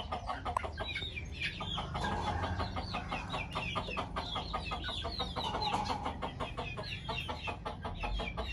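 A flock of chickens clucking and calling, many short calls overlapping one another without a break.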